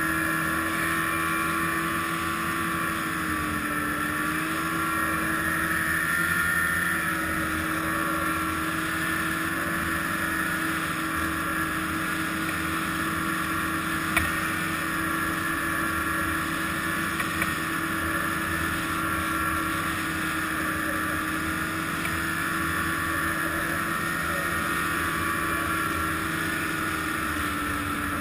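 Arctic Cat ZR 800 snowmobile's two-stroke twin engine running at a steady speed, its pitch dipping briefly about four seconds in and again near the end.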